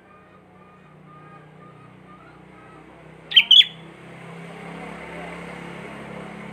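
Sooty-headed bulbul (kutilang) calling: two loud, sharp chirps about three seconds in, over faint short whistled notes. A steady low hum and a hiss rising in the second half sit underneath.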